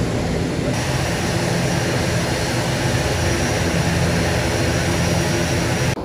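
Airliner cabin noise: the steady drone of the engines and rushing air, with a low hum of engine tones under a broad hiss. The hiss turns brighter about a second in.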